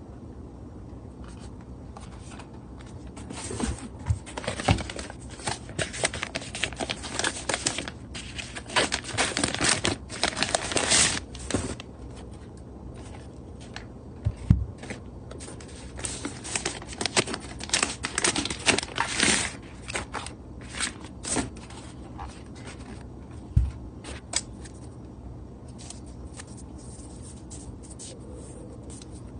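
Hands handling drone-kit packaging: crinkling and rustling of wrapped accessories and a fabric carry bag, with scattered clicks and knocks of parts being picked up and set down. The handling is busiest in the first half and again around the middle, thinning out near the end.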